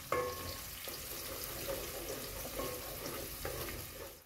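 Sliced onions frying in oil in a metal pot, sizzling steadily, while a wooden spoon stirs and scrapes the pot in regular strokes about once a second; the onions are just starting to turn light brown.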